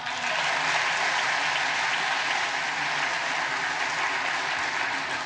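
Large audience applauding: steady clapping from many hands that starts abruptly and tails off near the end.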